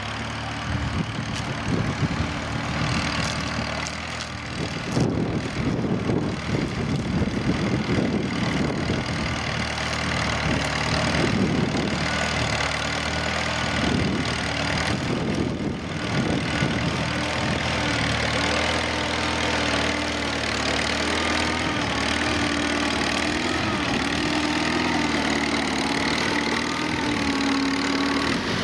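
Massey Harris Pony tractor engine running steadily as it pulls a plough through the soil, its note wavering slightly under the load.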